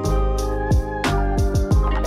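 Background music: a steady drum beat over held chords and a bass line.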